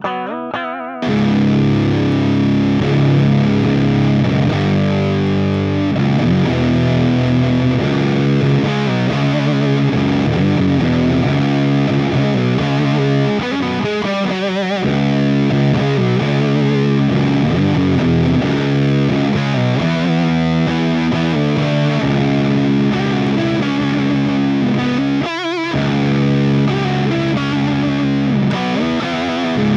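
Down-tuned electric guitar played through an EarthQuaker Devices Hizumitas fuzz pedal: heavy, sustained fuzz chords and riffs. The thick fuzz comes in about a second in, after a quieter, cleaner start.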